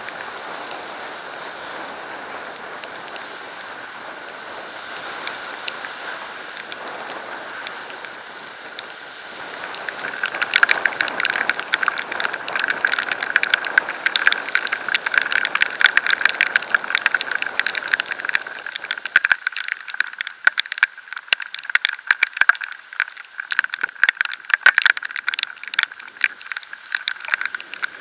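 Steady rushing road and wind noise of a ride on a wet road. From about ten seconds in, a dense crackling patter of water drops and road spray hits the camera.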